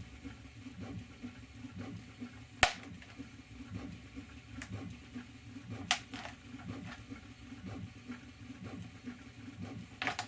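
A few sharp clicks as a center punch marks hole positions in a clear plastic box lid, the loudest a little over two seconds in and another about six seconds in, over a steady low hum from a running air conditioner and 3D printer.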